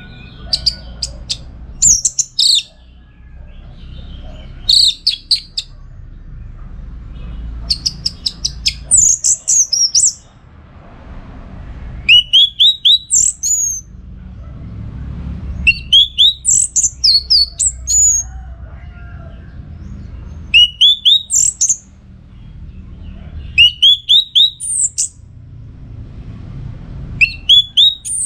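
Orange-headed thrush singing loud, vigorous song phrases, one every three seconds or so, each a quick run of rising whistled notes and high twitters. A low steady rumble sits underneath.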